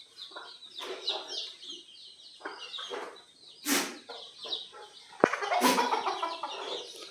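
Desi chickens clucking, with high chirping throughout and louder calls about three and a half and five and a half seconds in. A sharp click comes just before the second loud call.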